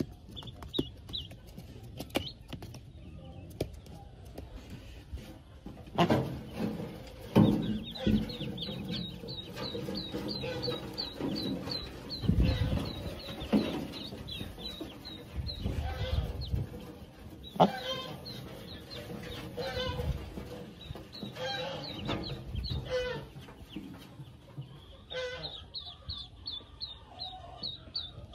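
Pekin ducklings peeping: runs of short, high, falling peeps from several birds, overlapping, with a few sharp knocks and rustling as the ducklings are handled among cardboard and straw.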